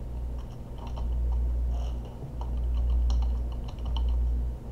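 Computer keyboard typing: a scatter of light key clicks, over a steady low hum.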